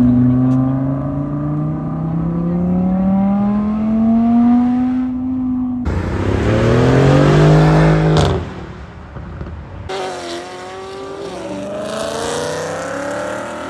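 Cars accelerating hard, in three short clips. First an Audi R8's V10 engine revs up steadily in one long pull. After a cut, another engine accelerates loudly and climbs in pitch, then cuts off abruptly. After a second cut, a third engine accelerates with its pitch rising.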